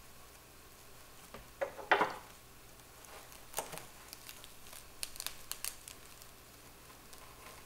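A dried loofah sponge crinkles and crunches as it is squeezed, loudest about two seconds in. Then scissors snip through its dry, stiff fibres several times, in a quick run near the middle.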